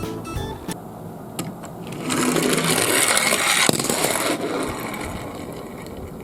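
Toy garbage truck minicar rolling down a slope on its plastic wheels, a whirring rattle that swells about two seconds in and fades out over the last couple of seconds.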